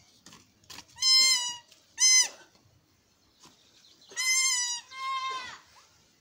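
Goat bleating: four high-pitched calls in two pairs. A longer call and a short one come about a second in, then two longer calls run back to back around four to five and a half seconds in.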